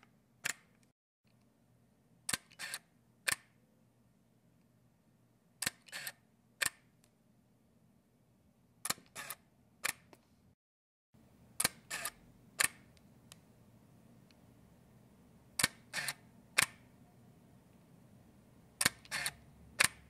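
Canon 5D DSLR shutter firing without the mirror movement, lens attached: six actuations about every three seconds, each a quick run of three sharp clicks over about a second.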